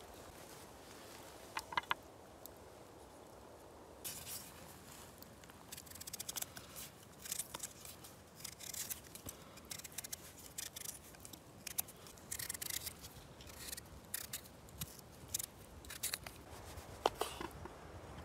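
Knife peeling a raw potato by hand, the blade scraping off the skin in quick, uneven strokes, several a second. Near the end, a few sharp knocks of the blade cutting through potato onto a wooden board.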